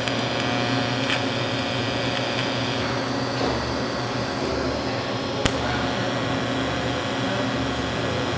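TIG welding arc buzzing steadily as custom plates are welded to the differential's spider gears to lock the diff. One sharp click past the halfway point.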